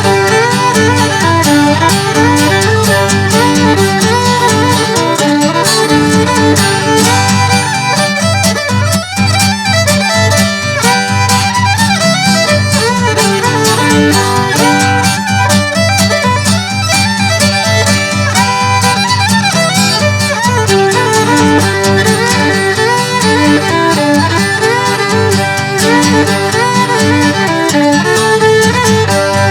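Old-time fiddle tune played with long bow strokes, backed by guitar keeping a steady rhythm in the bass.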